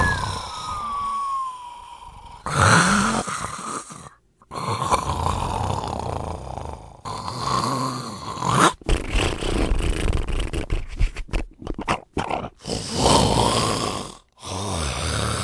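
A person snoring: a string of rasping snores about every two seconds. A falling whistle-like tone runs through the first two seconds, and a stretch of rapid rattling comes around the middle.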